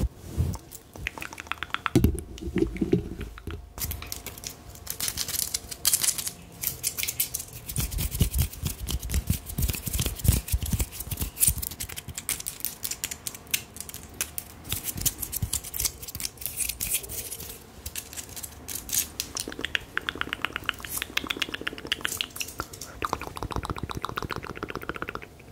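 Fast, irregular tapping and clicking close to the microphone, as an ASMR trigger.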